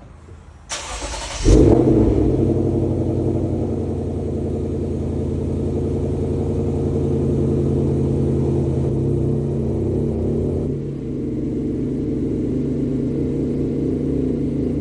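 A Mazda Miata's four-cylinder engine starts about a second in and then runs at a steady idle.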